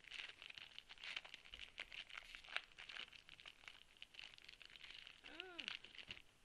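Foil trading-card pack wrapper being torn and handled: faint, irregular crinkling and crackling of the foil. A brief squeak that rises and falls in pitch comes about five seconds in.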